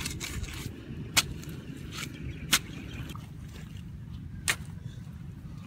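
A metal bar jabbed down into damp soil to dig a hole: three sharp strikes, a second and a half to two seconds apart, over a steady low rumble.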